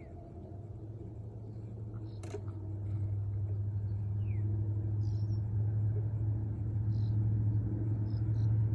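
A low, steady engine drone that grows louder from a few seconds in, with faint high bird chirps and a single sharp click about two seconds in.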